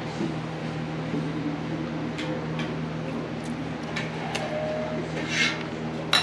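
A metal spoon against a soup bowl: a few light taps, then a sharp clink near the end. A steady low hum runs underneath.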